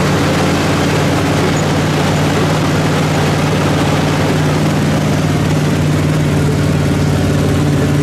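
Lifted mud truck's engine running loud at steady, constant high revs under load as it pulls against another truck in a tug-of-war, with a thick rushing noise over the engine note.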